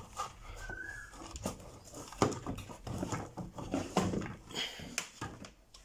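Scattered light knocks and clicks as a Yihua 937D soldering station is handled and set down on a workbench, the sharpest about two and four seconds in, with a few faint short high-pitched sounds between them.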